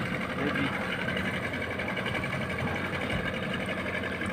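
Fishing boat's engine running steadily, a fast, even pulsing hum.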